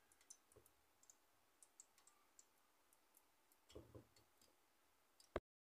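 Near silence with a few faint, scattered clicks, and one sharp click near the end after which the sound cuts to dead silence.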